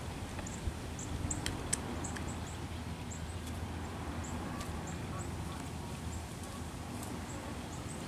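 Outdoor ambience: a steady low rumble under a string of short, very high chirps repeating every few tenths of a second, with two sharp taps about a second and a half in.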